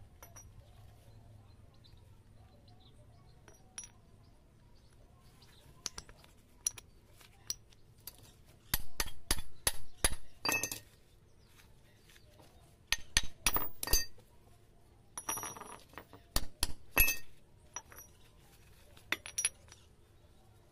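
Steel gearbox parts clinking together as they are handled: a splined pinion shaft and bevel gear knocking and rattling against each other. A few single clinks come first, then several quick runs of clinks in the middle.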